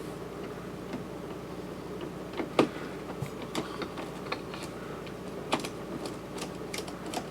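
Scattered light clicks and taps of metal latch hardware being handled and set in place at a refrigerator door hinge, with two sharper knocks, one about two and a half seconds in and one about five and a half seconds in. A steady low hum lies underneath.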